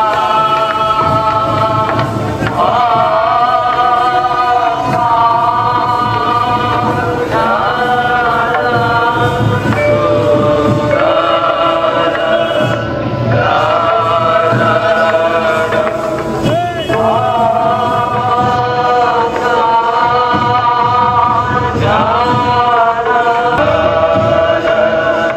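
Chant-like choral music: a group of voices singing long held notes together, sliding up into each new note every few seconds.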